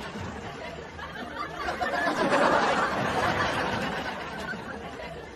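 Several people laughing and chattering, the laughter swelling about two seconds in and then easing off.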